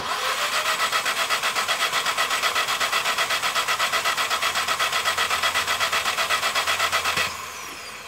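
Three-cylinder petrol engine cranked on its starter motor with all injectors disconnected and the coil-over-plug units out of the head for a spark check, so it turns over in an even, rapid rhythm without firing. The cranking stops abruptly about seven seconds in, and a falling whine trails off as the starter spins down.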